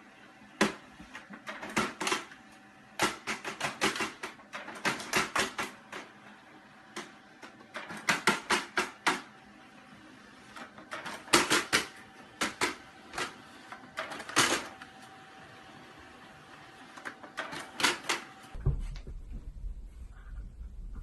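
Rapid clicking and tapping in quick clusters of sharp clicks, over a faint steady hum. Near the end this gives way to a low rumble.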